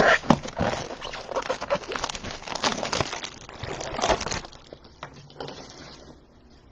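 Plastic-wrapped trading card packaging crinkling and tearing open in quick crackles for about four seconds, then fading to quiet handling.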